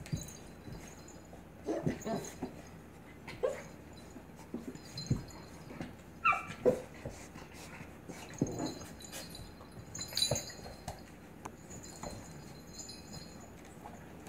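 A blue pit bull puppy and an adult pit bull play-fighting, giving scattered short whimpers and yips amid scuffling on a hardwood floor, with one high yelp about six seconds in.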